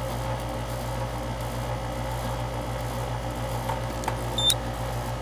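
Outdoor air-conditioning condenser unit running with a steady low hum, back in operation on a newly replaced run capacitor. A brief sharp click about four and a half seconds in.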